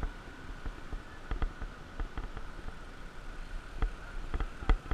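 Mountain bike rolling over a rough, rutted dirt track: a low rumble of tyres on dirt with irregular sharp knocks and rattles from the bike jolting over bumps. A faint steady high hum sits underneath.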